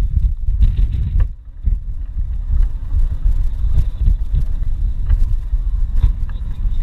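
Low rumble of a moving vehicle with wind noise and scattered clicks, dipping briefly about a second and a half in.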